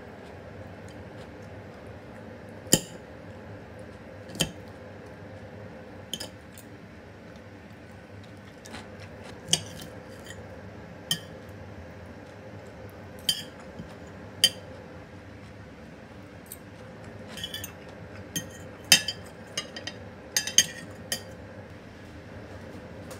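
Metal knife and fork clinking and scraping on a ceramic plate as sausage is cut and sauerkraut gathered up. There are a dozen or so sharp clinks at irregular intervals, coming closer together near the end, over a steady faint room hum.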